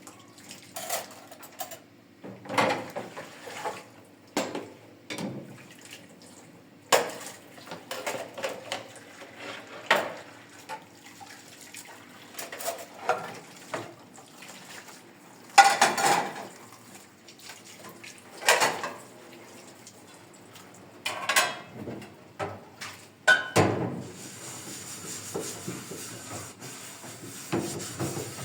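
Dishes and cutlery clinking and knocking against each other in irregular clatters as they are washed and set down. Near the end a steady scraping noise sets in.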